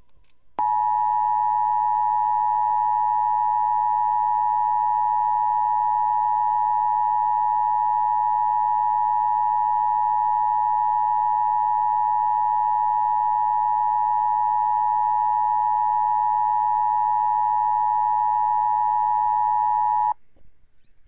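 Emergency Broadcast System two-tone attention signal: a loud, steady dual-tone alarm that starts about half a second in, holds unchanged for about twenty seconds, and cuts off suddenly about a second before the end. It marks a broadcast test.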